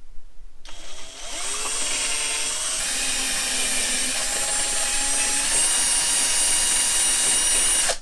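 Handheld power drill running, its bit easing a hole in the plastic motorcycle fairing slightly larger to take a stainless rivnut. It starts under a second in, the motor's pitch rising as it spins up, runs on steadily and cuts off suddenly near the end.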